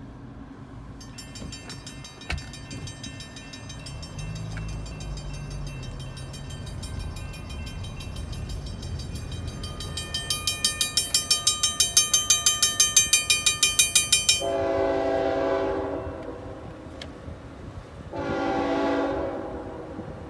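Railroad crossing warning bell ringing rapidly and steadily, getting louder, then stopping abruptly. A freight locomotive's air horn then sounds two chord blasts of about a second and a half each, a few seconds apart.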